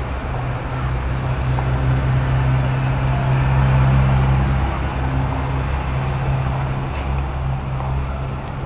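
A steady low mechanical hum over a rushing noise, swelling slightly around the middle.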